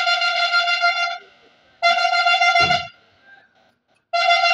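Truck horn sounding three blasts on one steady high note, the first two about a second each and the last one shorter. A brief low thump lands during the second blast.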